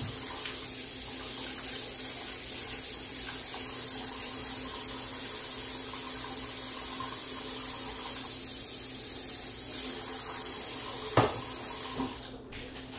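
Kitchen tap running steadily, water pouring to add more water to the pot roast. A single knock about eleven seconds in, and the flow stops just after.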